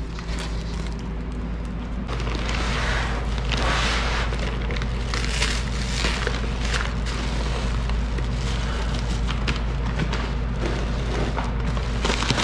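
Plastic sheeting and bagging wrapped around an engine block rustling and crinkling as it is handled, in irregular bursts over a steady low rumble.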